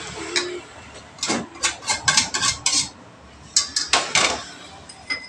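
A plate and a wire whisk clanking against a stainless steel mixing bowl as margarine and lard are knocked off into the mix: a run of about seven quick metallic clanks, then, after a short pause, about four more.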